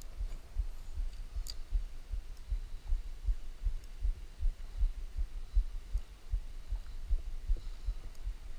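Low, dull thumping on the microphone, roughly four uneven thumps a second, with a brief faint click about one and a half seconds in.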